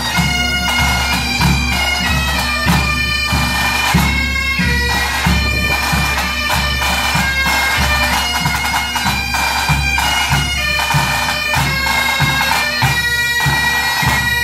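Pipe band playing: Great Highland bagpipes sounding a tune over their steady drones, with drums beating time.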